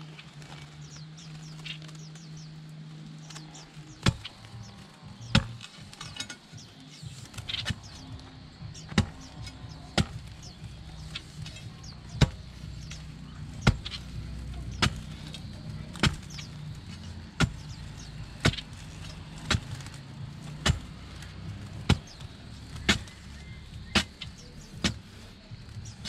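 Steel blade of a long-handled digging spade striking dry, packed soil again and again, about one strike a second.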